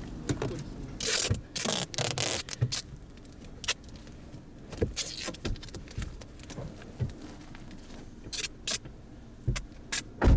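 Handling sounds inside a parked car as it is being taped up: rustling and scraping with scattered knocks, and a few loud bursts of rustling about one to three seconds in.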